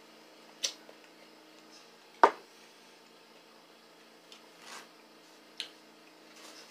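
Eating at a table heard close up: a few scattered sharp clicks and taps, with the loudest, a knock, about two seconds in, over a faint steady hum.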